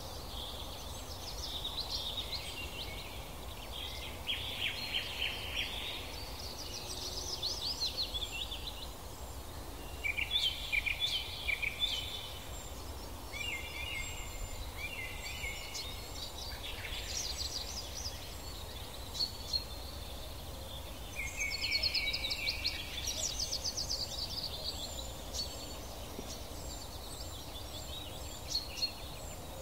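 Songbirds singing, several at once, in repeated bursts of quick trills and chirps, over a steady low background noise.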